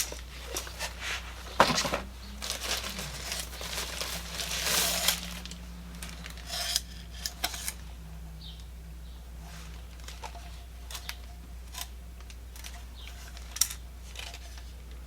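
Handling noise from a Topping DX3 Pro DAC and headphone amplifier being turned over and shaken: rustling and small metallic clicks and rattles, which sound like a loose screw inside the unit.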